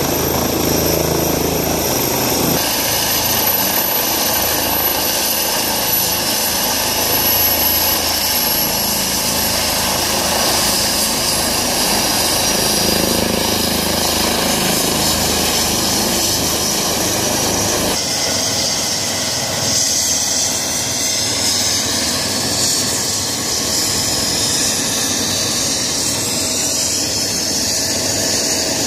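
Rescue helicopter standing on the ground with its engine and rotor running, a steady, loud, unbroken noise.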